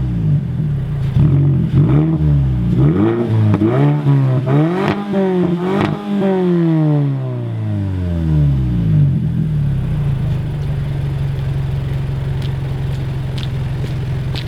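2015 Mazda 6's 2.5 L four-cylinder engine revved several times in quick succession through an open electronic exhaust cutout that bypasses the muffler. There are sharp pops as the revs drop. The revs fall away about nine seconds in, and it settles into a steady, deep idle.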